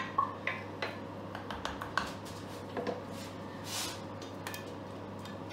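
Sliced potatoes being scraped out of a steel saucepan into a baking dish: a few light taps and clicks of utensil on pan, and a brief scrape about four seconds in.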